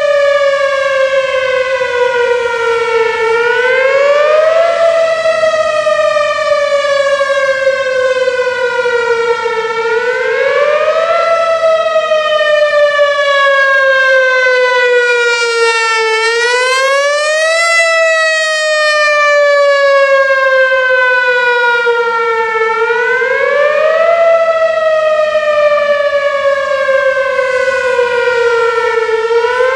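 Whelen Vortex outdoor warning siren sounding its wail test tone, loud. Each cycle is a quick rise in pitch and a long, slow fall, repeating about every six and a half seconds.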